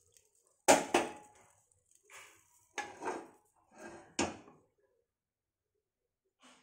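A metal ladle clanking against an aluminium pressure cooker as oil is ladled into the pot: two loud clanks just under a second in, then several softer knocks over the next few seconds.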